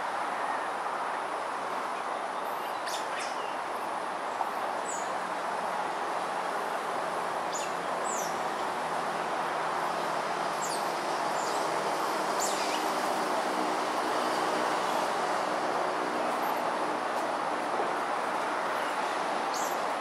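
Steady urban background noise, with an engine-like hum from a passing train or vehicle that swells in the middle and fades again. Short, high, falling chirps come and go over the top.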